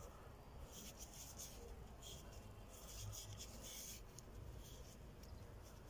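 Faint rubbing and scratching of a gloved hand turning a new Bosch spin-on oil filter canister over.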